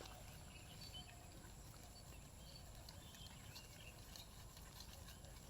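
Near silence: faint open-air pasture ambience with a low rumble and a few faint, short, distant calls.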